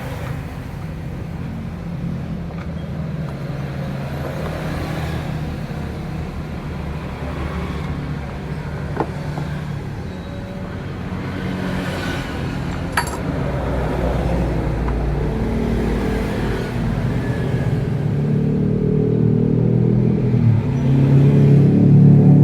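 A motor vehicle engine running, a low steady hum that grows louder toward the end, with a couple of sharp metallic clicks in the middle.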